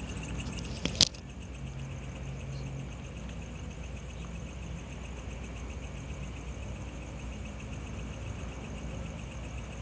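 Night insects, crickets, chirping steadily in fast pulsed trills over a low rumble, with one sharp click about a second in.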